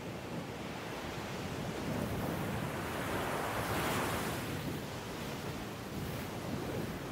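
Sea waves washing in, a swell of surf that builds to a peak about four seconds in and then falls back.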